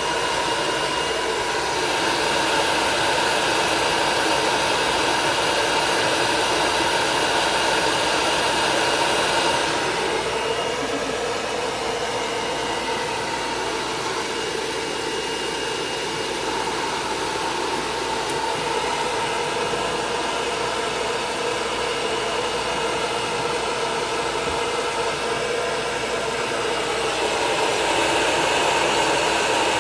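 Electric dryer for drying a dog's coat running steadily: rushing air with a steady motor whine, its tone shifting slightly a couple of times as it is moved.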